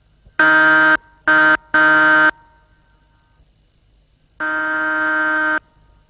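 Car horn honked: three short honks in quick succession, then one longer honk about two seconds later.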